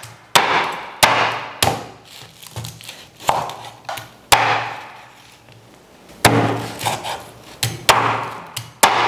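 A heavy knife chopping hard through deep-fried pig tails with crisp skin: about eight sharp chops at uneven intervals, with a pause of about two seconds near the middle.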